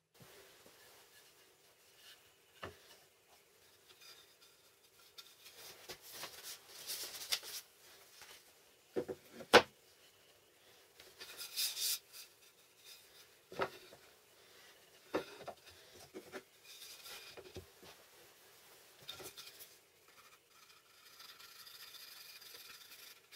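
Wooden boards being handled, slid and set down on a table-saw top: scattered soft knocks and scrapes, with one sharp click about ten seconds in. Near the end comes a steady soft rubbing as white wood glue is run from a bottle along an MDF board's edge.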